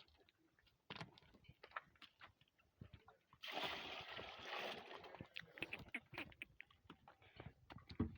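Quiet water splashing and sloshing, with a louder splash lasting over a second about three and a half seconds in, among scattered small clicks and knocks.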